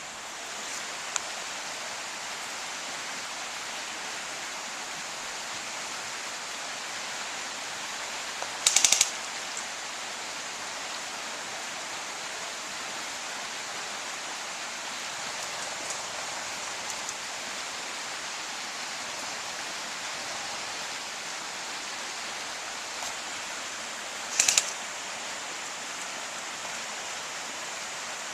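Two short rapid bursts of airsoft gun fire, each a quick run of five or six sharp snaps, one about nine seconds in and one near the end, over a steady hiss.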